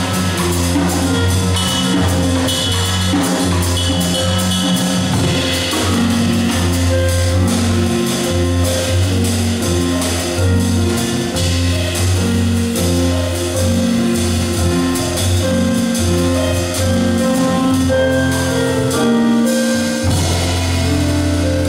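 Jazz piano trio playing: stage piano, double bass walking low notes and drum kit with cymbals.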